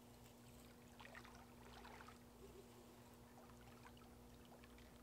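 Near silence: a faint steady hum with a few faint scattered ticks, most in the first two seconds.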